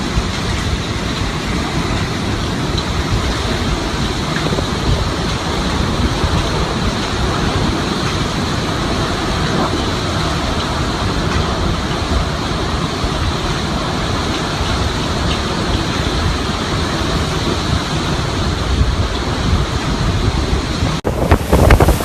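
Hurricane wind blowing hard in a steady rushing noise. About a second before the end it cuts to louder, gusting wind buffeting the microphone.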